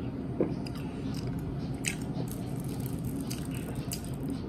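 A person drinking from a plastic bottle: swallowing and small mouth and bottle clicks, the sharpest about half a second and two seconds in, over a steady low hum.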